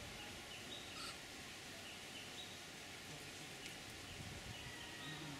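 Quiet outdoor ambience: a steady background hiss with scattered faint, short high bird chirps.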